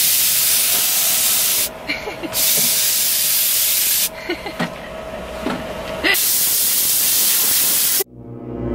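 Compressed-air blow gun hissing in three long blasts with short pauses between them. The sound cuts off abruptly about eight seconds in.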